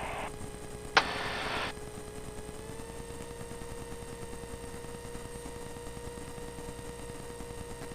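Light aircraft's turbocharged engine heard as a faint steady drone, its pitch stepping up slightly about three seconds in as power comes up for takeoff. About a second in there is a click and a short burst of radio hiss.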